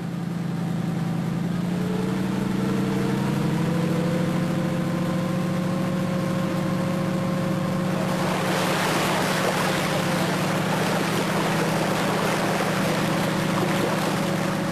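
An engine runs steadily, its pitch rising slightly about two seconds in as it takes up load. From about eight seconds in, water splashes and churns loudly over the engine.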